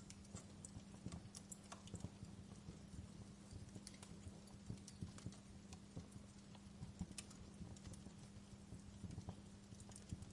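Wood fire crackling in a fireplace: irregular small pops and snaps over a low, steady hum.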